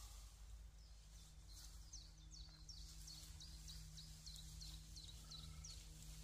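Faint bird song: a run of short, high, falling notes, about three a second, over a low steady hum.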